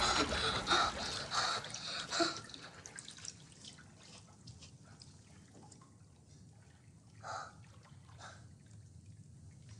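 Bathwater dripping and trickling quietly in a bathtub, as a loud sound dies away over the first couple of seconds. One drip stands out, a little louder, about seven seconds in.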